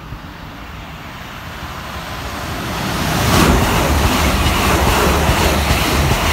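London Northwestern Railway Class 350 electric multiple unit running along the platform: the sound of wheels on rail builds over the first few seconds as it approaches. From about three seconds in it is a loud, steady rush and rumble as the carriages go past close by.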